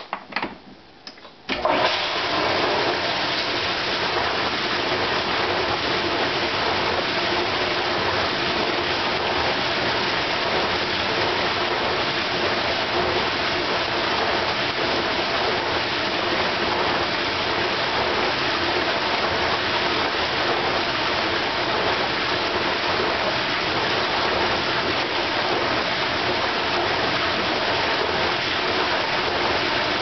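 1993 KitchenAid dishwasher starting a wash cycle: a few clicks, then about a second and a half in its 1/2 horsepower motor comes on. Its hydro-sweep wash arms spray water in a loud, steady rush against the racks and a plastic sheet covering the open door.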